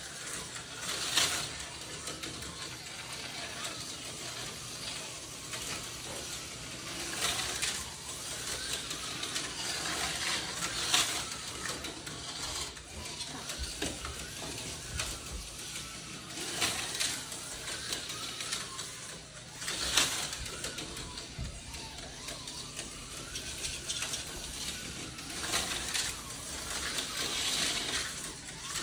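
TYCO HO-scale slot cars running on plastic track: their small electric motors and gears make a steady whir, with a sharp clack now and then, about six or seven times.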